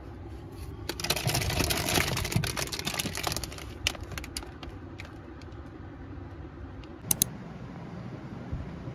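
Plastic snack and instant-noodle packets crinkling and rustling as a hand digs through them and picks one out: a dense crackle for a couple of seconds, then scattered crinkles. Two sharp clicks about seven seconds in.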